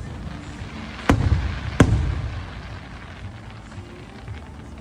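Aerial fireworks shells bursting overhead: two sharp bangs about 0.7 s apart, a second or so in, each trailing off in a low rolling rumble.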